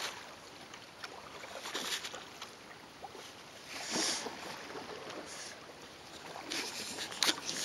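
Canoe paddle strokes in calm river water: soft swishing splashes a couple of seconds apart over a steady light hiss.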